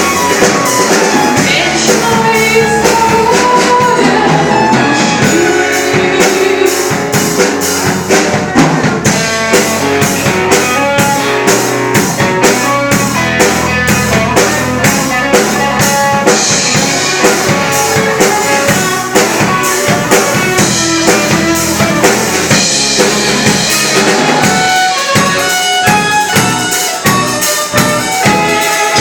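Rock band playing an instrumental passage, with a drum kit keeping a steady beat under guitars and bass.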